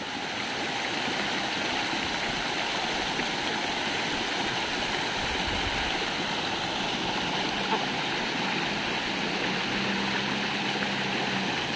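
A shallow rocky mountain stream rushing over boulders and a small waterfall: a steady, even rush of water.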